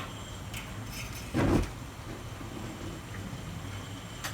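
Propane patio heater burner catching light with one short, low whoosh about a second and a half in. A sharp click comes near the end.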